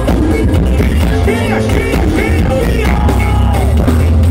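A forró band playing live and loud through a concert sound system, with a heavy, steady bass and a gliding melody line on top.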